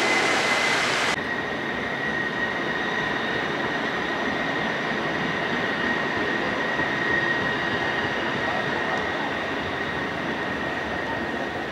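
Splashing fountain water for about the first second, then a CAF Urbos low-floor tram rolling past at low speed, with a steady high-pitched whine running under its passing noise.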